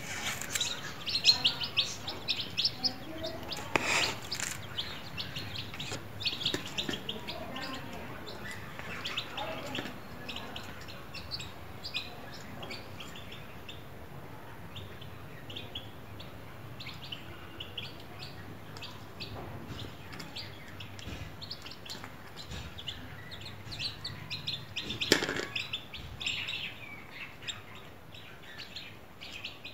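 Domestic chicken chicks peeping: many short high chirps, with two louder sharp noises, one about four seconds in and one about twenty-five seconds in.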